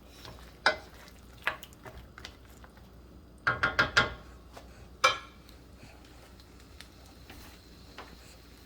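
A spoon knocking and scraping against a wok while chicken is stirred through a thickening sauce, with a quick run of knocks about three and a half seconds in and a single knock about five seconds in, over a quiet sizzle.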